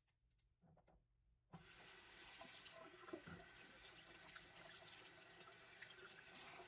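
A few faint handling clicks, then about a second and a half in a water tap is turned on and water runs steadily into a sink.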